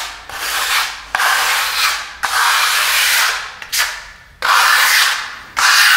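Steel plastering trowel (kelma) scraping across a wet coat of pearlescent silk decorative plaster on a wall, in about six long, rasping strokes, as the first coat is smoothed and joined.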